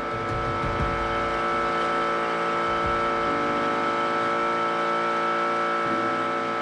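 A 15 hp outboard motor running at a steady, even pitch, driving a small boat along at speed.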